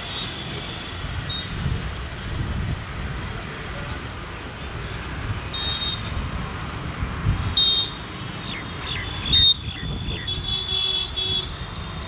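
WAP-4 electric locomotive and its express train approaching with a steady low rumble. Short high-pitched chirps cut in every second or two, the loudest about nine and a half seconds in.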